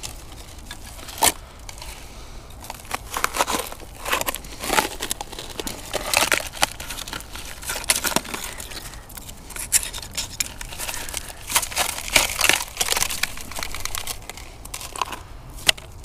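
A knife prying and scraping at a corroded metal Wehrmacht gas-mask filter canister, opening it, with irregular crackling, crunching and scraping throughout.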